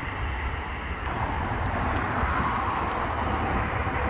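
Electric train approaching, its running noise growing steadily louder, over a low rumble.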